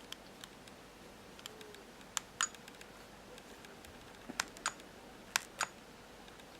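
Small plastic push buttons on a car dashcam being clicked, press and release, three times in a row with a few fainter ticks between.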